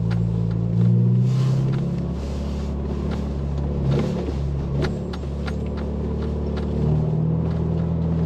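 2023 Ford Bronco's 2.3-litre turbo four-cylinder running at low revs in the crawl gear over a rock garden, heard from inside the cab. Its note shifts a little about two and seven seconds in, with scattered knocks and clicks.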